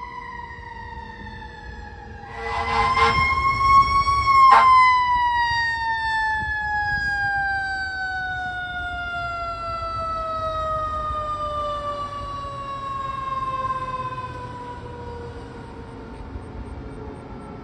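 Fire truck siren wailing, rising briefly and then falling slowly in pitch over many seconds as it winds down. A short loud horn blast cuts in about two seconds in.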